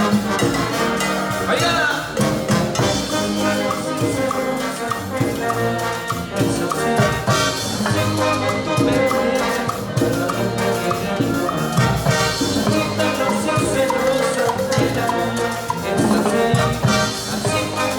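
Band playing Peruvian cumbia, a full instrumental ensemble with a steady danceable beat.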